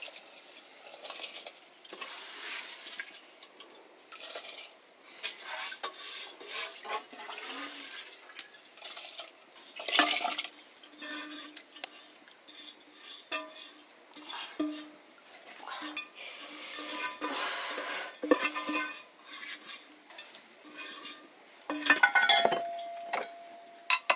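Aluminium bowl and pot clinking and scraping as rice is handled and tipped into a pot of water, then a metal ladle stirring in the pot. The clatters come irregularly throughout, with a short ringing note near the end.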